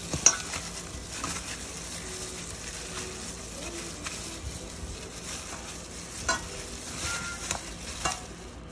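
A gloved hand mixing spice-coated raw fish pieces in a stainless steel bowl: wet stirring with sharp clicks of fish against the metal, the loudest just after the start and a few more near the end, over a steady hiss.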